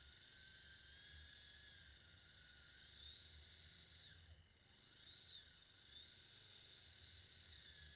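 Near silence: faint background hiss with a faint, slowly wavering high whine.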